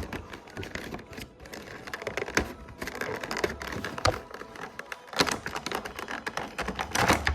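Small plastic toy pieces and packaging being handled, with irregular clicks, taps and some rustling.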